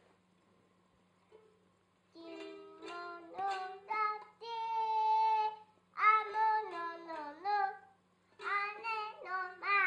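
A toddler singing in short, high phrases with brief pauses between them and one longer held note, starting about two seconds in after a near-silent start.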